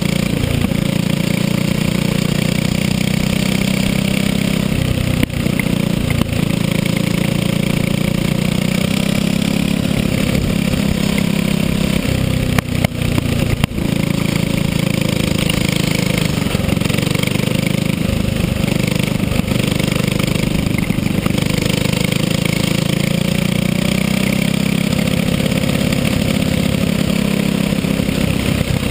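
Racing kart engine running at speed throughout a lap, heard from on board, its revs rising and falling through the corners. There are a couple of brief dips and knocks about halfway through.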